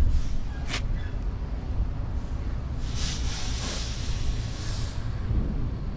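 Wind buffeting the microphone as a steady low rumble, with a sharp click just under a second in and a rushing hiss that swells up and fades away again about halfway through.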